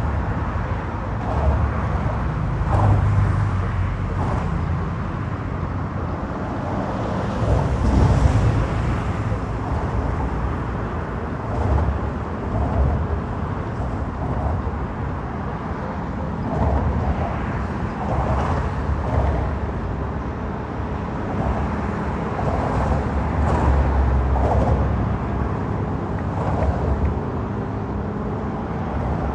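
Downtown city traffic heard from a moving bicycle: a steady mix of passing cars and road noise, with a low rumble that swells and fades every few seconds.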